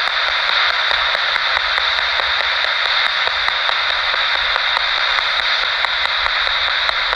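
Radio static from a ghost-hunting radio scanner (spirit box) sweeping through stations: a steady hiss broken by quick, evenly spaced ticks, about five a second.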